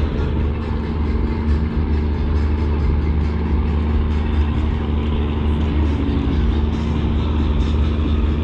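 Large ship diesel engines running steadily, a loud, deep, even drone with steady low tones over it.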